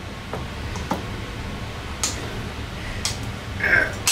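End-cutting nippers snipping off fastener tips that poke through an OSB board: a few sharp clicks about a second apart.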